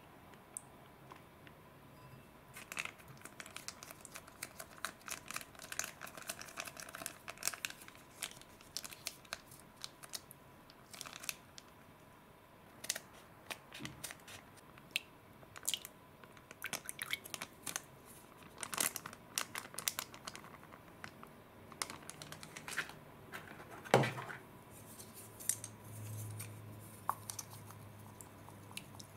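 Foil sachet of slime liquid crinkling as it is handled and cut open with scissors, with many small clicks and one sharp knock, the loudest sound, about three-quarters of the way through. Near the end, chopsticks stir slime in a glass bowl.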